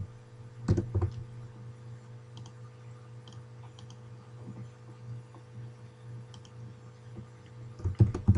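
Computer keyboard typing, with a few strong keystrokes about a second in, then sparse faint mouse clicks over a steady low hum.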